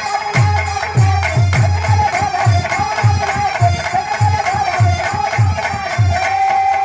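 Folk instrumental music: a held, wavering melody line over regular low drum strokes, about three a second, with jingling percussion. It is an instrumental interlude in a Birha performance.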